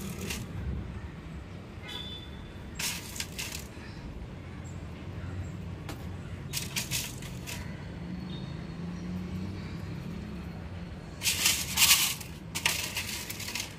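Small chili seeds sprinkled by hand, rattling and pattering against a plastic seed tray and potting mix in about five short bursts, the loudest near the end. A steady low hum runs underneath.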